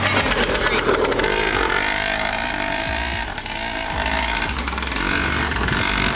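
2005 Yamaha PW80's small two-stroke single-cylinder engine revving as the bike is ridden, through an FMF Fatty pipe and Powercore 2 silencer. The throttle eases off briefly about three seconds in, then the engine picks back up.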